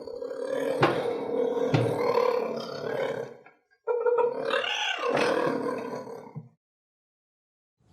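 Cheetah vocalising in two rough stretches a few seconds long, with a brief break between them, the second rising and falling in pitch before it cuts off suddenly.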